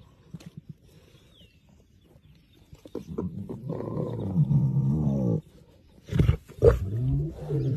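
Lion calling: after a quiet start, a long deep call of about two and a half seconds, then a short sharp burst and a second, shorter deep call near the end.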